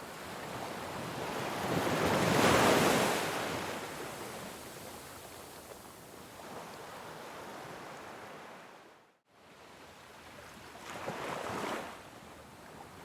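Ocean waves washing ashore: one big wave swells about two seconds in and fades slowly, the sound cuts out for a moment past the middle, then a smaller wave swells near the end.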